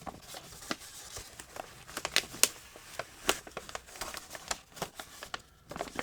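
Paper and packaging being handled, rustling and crinkling, with scattered sharp clicks and taps.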